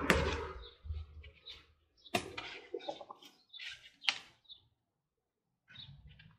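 Rustling of large rhubarb leaves and stalks, with three sharp snaps about two seconds apart, as rhubarb stalks are pulled from the crown of the plant.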